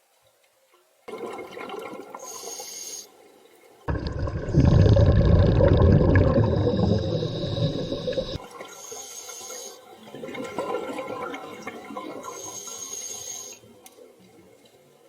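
Scuba diver breathing underwater through a regulator: a short hissing inhale, then a long loud rush of exhaled bubbles, followed by more breaths.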